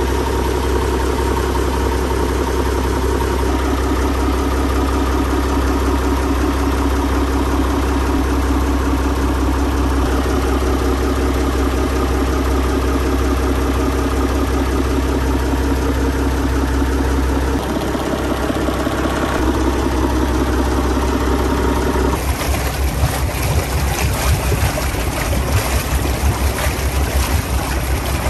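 Volvo Penta inboard marine diesel running steadily, heard close up in the open engine bay. About 22 s in the sound turns rougher and splashier as water gushes from the exhaust outlet in the hull, over the engine note.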